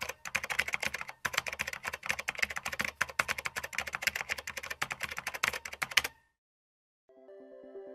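Rapid clatter of keyboard typing, a sound effect for the text being typed out on screen. It runs for about six seconds with a brief break just after the first second, then stops. Soft music fades in near the end.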